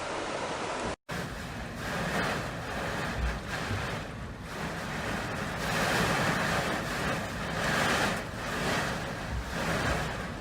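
Typhoon storm noise: a dense rush of wind and water that swells and eases about every two seconds. There is a brief dropout to silence about a second in.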